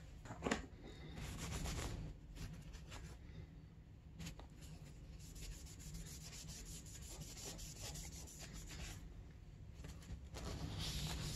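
Shop rag rubbing and wiping along a dirt bike's front brake hose, in stretches of scratchy friction noise, with a sharp click about half a second in as the parts are handled.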